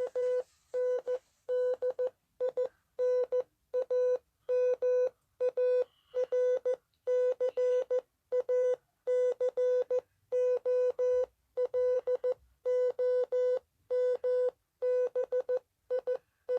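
Emergency alert alarm: a buzzy, mid-pitched tone rich in overtones, pulsed on and off in short bursts a little over once a second. Each burst has a fast flutter inside it, and some burst as quick stutters.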